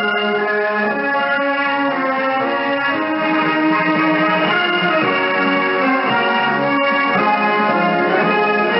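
Orchestral music with prominent brass, heard through a shortwave radio receiver, with the narrow, muffled sound of a band-limited broadcast.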